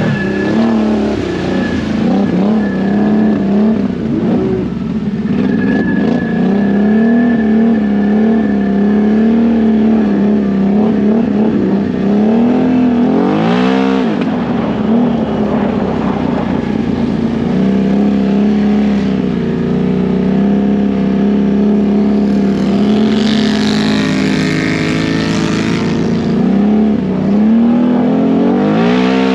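Can-Am Outlander 1000 ATV's V-twin engine running hard at a steady pitch for long stretches, with the revs rising and dropping sharply about halfway through and again near the end. A hissing rush comes a few seconds before the end.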